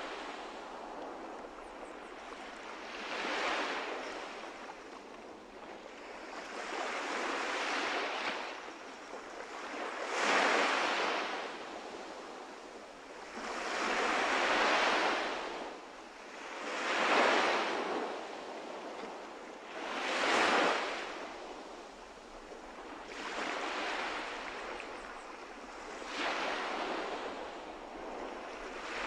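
Atlantic surf breaking on a sandy beach: the wash of each wave swells and fades about every three seconds.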